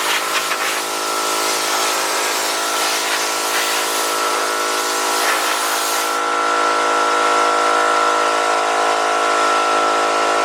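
Anest Iwata Dear HX4009 air compressor running: a steady motor hum with many even overtones over a constant hiss of air.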